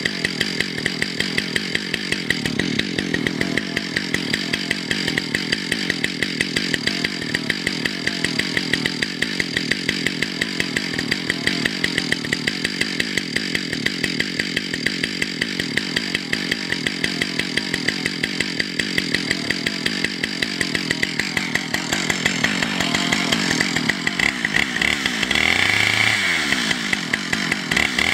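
Chainsaw idling steadily on the ground with an even, rapid pulse. Over the last several seconds it is taken up and revved, growing louder, its pitch rising and falling.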